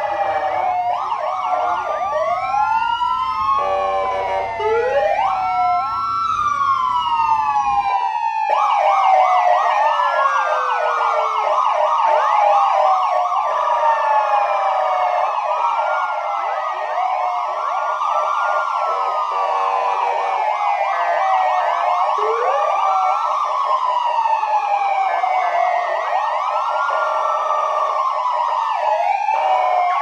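Several police sirens sounding together from a patrol convoy. Slow wails rise and fall over one another, mixed with a rapid yelping warble.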